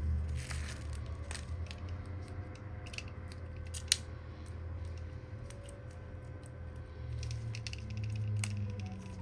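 Scattered light clicks and taps of a Samsung Galaxy A20's plastic back cover and parts being handled and pressed together while the phone is closed up, with one sharp click about four seconds in. A low steady hum runs underneath.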